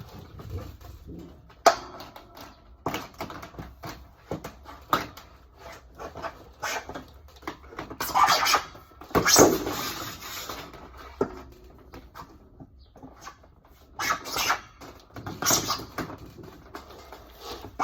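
Irregular rustling and scratching with sharp knocks, as of things being handled and moved about.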